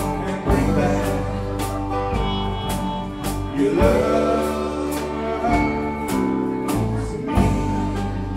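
Live alt-country rock band playing: electric and acoustic guitars, bass and a drum kit keeping a steady beat, with a man singing lead.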